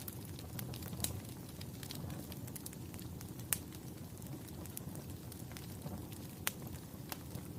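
A fire crackling: irregular sharp pops and snaps over a steady low rumble of flames, with two louder pops, one about halfway through and one near the end.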